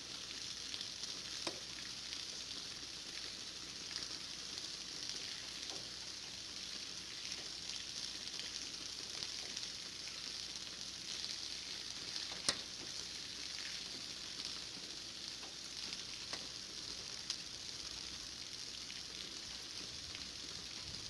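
Steady rain falling, an even hiss, with a few sharp drop ticks scattered through it, the sharpest about halfway through.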